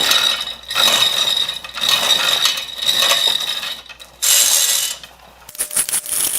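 Ratchet wrench worked back and forth on a fastener while the mill head is being dismantled, each stroke a run of fine clicks, about once a second. A few sharp clicks come near the end.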